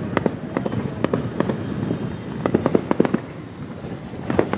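Fireworks going off: many sharp cracks and bangs in irregular clusters, over a steady low background noise.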